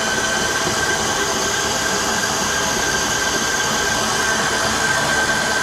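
Electric stand mixer running steadily with a constant whine, beating boiled yam and English potatoes with hot milk and cream into mash.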